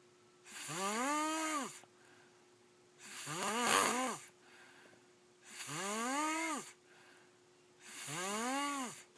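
A boy snoring: four snores about two and a half seconds apart, each a pitched hum about a second long that rises and then falls in pitch. The third is louder and rougher than the others.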